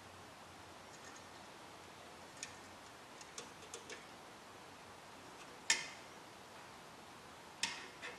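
Scattered small clicks and taps of a metal hand tool and stiff wire leads against a steel radio chassis during wiring work, the loudest about six seconds in and a double click near the end.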